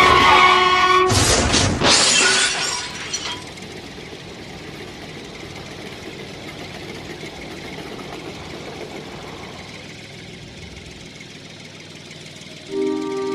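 Toy steam train's electronic horn sounding, cut off about a second in by a loud crash lasting about two seconds as the train hits a toy tractor. Then a faint steady hiss, and music with sustained tones starts near the end.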